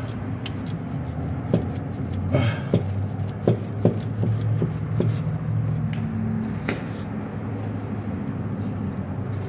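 Several short, sharp clicks and knocks of hand work on a car's parts, over a steady low hum.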